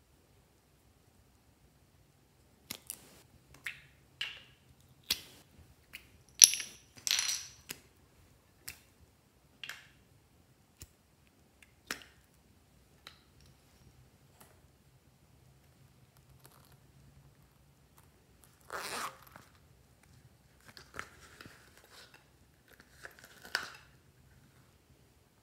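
Sharp plastic clicks and taps as small plastic capsules and pots are handled and opened over a glass bowl, a dozen or so spread out, the loudest about six to seven seconds in. Later come a few short rustling scrapes.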